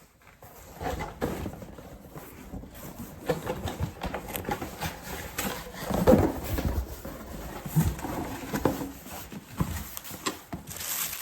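A package being opened and handled by hand: irregular knocks, scrapes and thumps, the loudest about six seconds in, then packaging starting to crinkle near the end.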